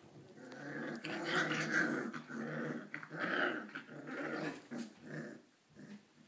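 Three-week-old puppies growling at each other as they squabble: a run of small, rough growls that starts about half a second in and fades out near the end.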